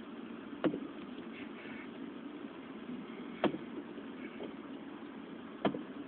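Fireworks going off: three sharp bangs, about a second in, in the middle and near the end, the middle one loudest, over a steady low background rumble.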